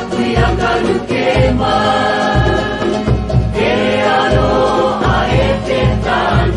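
Background music: voices singing over a steady bass beat.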